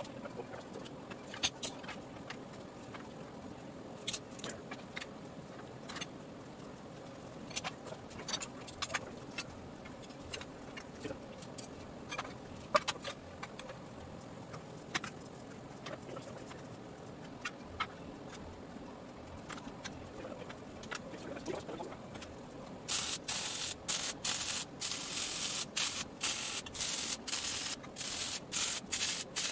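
Scattered light clicks and metal knocks as steel pieces and clamps are handled on a frame rail. About 23 seconds in, arc welding begins: a string of short, loud crackling hisses with brief gaps, tack welds being laid.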